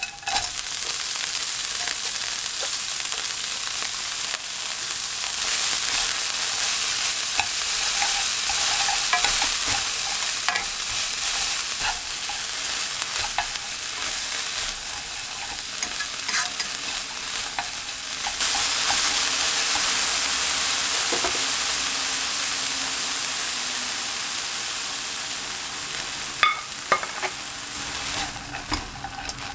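Soybean sprouts and minced garlic sizzling as they are stir-fried in oil in a nonstick wok. The sizzle fades near the end, leaving chopsticks clicking against the pan a few times.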